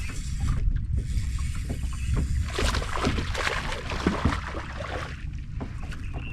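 Low rumble of wind and water around a fishing boat, with scattered small knocks and clicks, and a louder rush of noise from a little before the middle until about two-thirds through.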